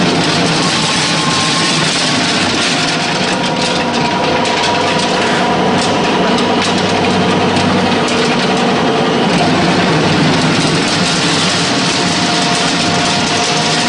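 Animal feed pellet mill with a 22 kW electric motor running while it presses out 8 mm feed pellets: a steady motor hum under a dense hiss, with a few faint clicks near the middle.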